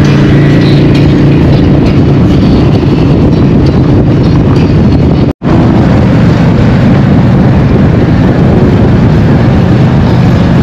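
Harley-Davidson V-twin motorcycle running steadily while riding, under heavy wind and road noise. The sound cuts out for an instant about halfway through.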